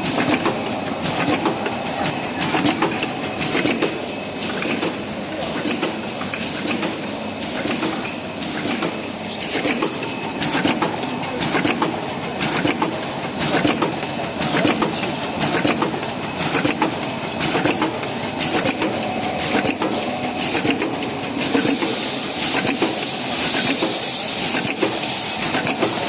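SoonTrue dual-channel handmade-style dumpling machine running, a steady rhythmic mechanical clatter of many quick clicks; a hiss comes in near the end.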